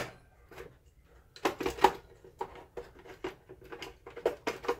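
Projector lamp module being slid back into its bay and seated: a run of short plastic clicks and knocks, irregular, bunched in the second half.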